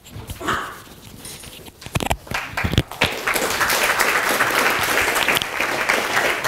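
Audience applauding, a dense clapping that starts about three seconds in after a few scattered knocks.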